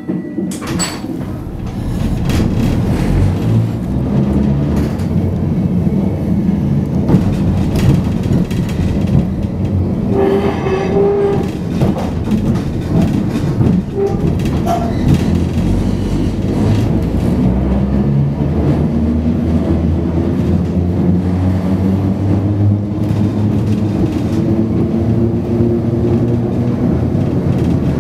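Electric tram running along the track: a steady low rumble of wheels on rail with the hum of the traction motors, and a brief higher tone about ten seconds in.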